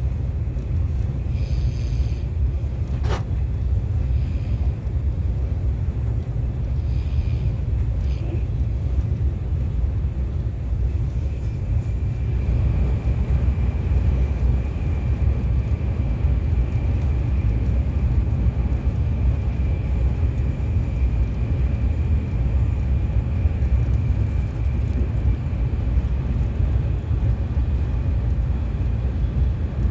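KTX high-speed train running at speed, heard from inside the carriage: a steady low rumble, with a faint steady high whine joining about twelve seconds in.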